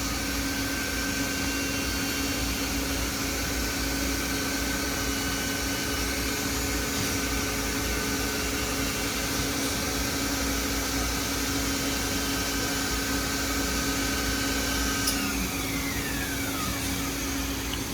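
CNC router spindle running with a steady high whine over a low machine hum while the axes move through an air cut. About fifteen seconds in, a click is followed by the whine falling steadily in pitch as the spindle spins down.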